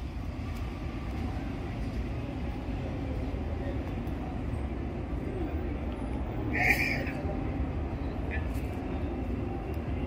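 City street background at night: a steady low rumble of traffic with faint crowd murmur, and a short high squeak about two-thirds of the way through.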